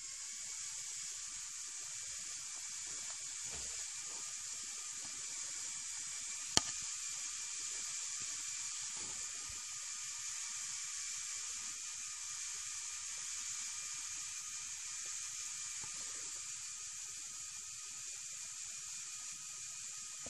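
Small electric motors of a remote-controlled LEGO Technic crane running, a steady high whir like a hiss that starts suddenly just before and holds even throughout. One sharp click about six and a half seconds in.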